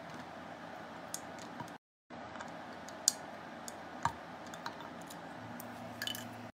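Fenugreek seeds being poured into a blender cup over aloe vera pieces, a few sharp clicks as seeds land, the loudest about three and four seconds in, over a steady low hiss. The sound cuts out briefly just before two seconds in.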